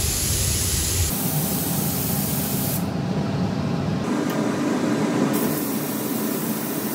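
Compressed-air paint spray gun with a gravity-feed cup hissing as it sprays paint onto a truck cab door. The hiss drops about three seconds in and picks up again a little after five seconds, over a steady low rumble.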